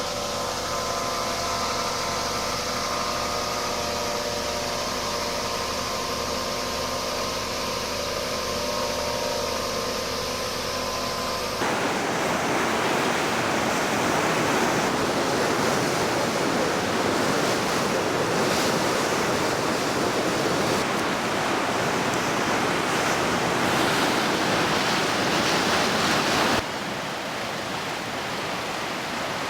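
A motor-driven pump hums steadily with several fixed tones over rushing water for about the first twelve seconds. Then it cuts to a louder, even rush of floodwater.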